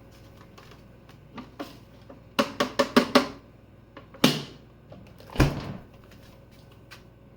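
Plastic dust cup of a Shark Duo Clean vacuum knocked to shake out dirt and dust: a quick run of about six knocks, then two louder single knocks a second apart.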